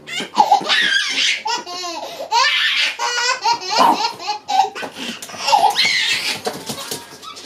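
A baby laughing hard in bursts of high-pitched belly laughs, one after another.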